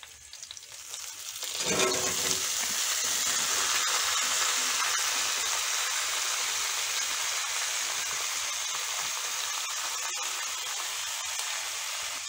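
Hot oil in an iron kadai sizzling as chopped vegetables are tipped in about two seconds in; the sizzle swells, then runs on steadily while the vegetables fry, slowly easing off.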